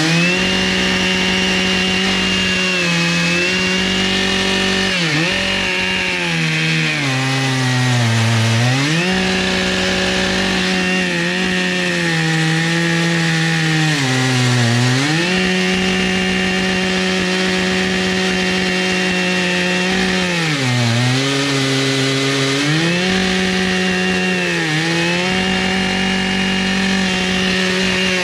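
Two-stroke chainsaw on an Alaskan chainsaw mill running at full throttle, ripping a butternut log lengthwise into slabs. The engine note sags about six times as the bar loads up in the cut, then climbs back.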